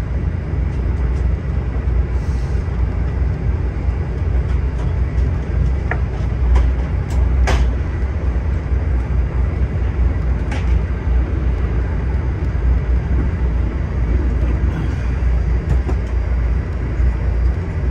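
Steady low rumble and running noise inside a VIA Rail LRC passenger car travelling at high speed, about 90 mph, with a few sharp clicks and rattles midway.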